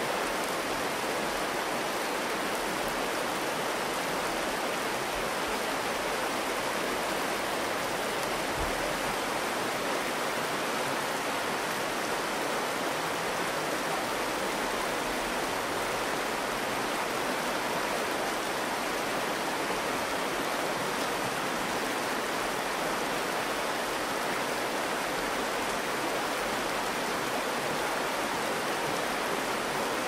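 Shallow river water flowing steadily over a rocky bed in a sandstone slot canyon, a constant babble and splash of current.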